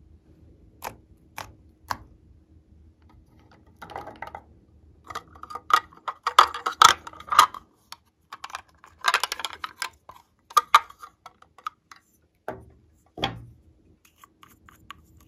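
Plastic lip gloss packaging being handled: a few sharp clicks, then stretches of crackling, clicking plastic as the clamshell box is opened and the tube taken out, and two louder knocks near the end.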